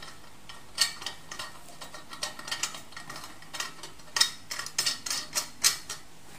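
Fuel filler cap being screwed shut on a Coleman 533 Dual Fuel stove's metal fuel tank: a run of small, irregular clicks and scrapes as the cap turns on its threads and the fingers handle the tank.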